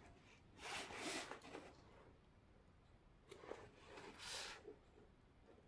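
Soft rustling of a diamond painting canvas being handled and flexed by hand: two spells of it, about a second in and again past the middle.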